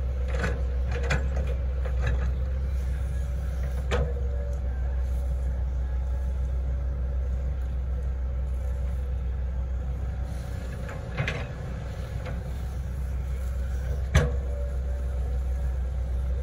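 Hitachi Zaxis 110 excavator's diesel engine running steadily under load as it digs a trench, with a faint whine over the engine and a few sharp knocks, the loudest about fourteen seconds in.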